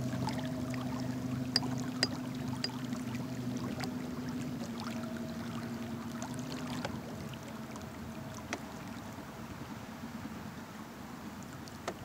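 Electric trolling motor pushing a kayak, running with a steady hum over the wash of water along the hull. The hum fades out about seven seconds in. A few sharp clicks come in the first few seconds and one near the end.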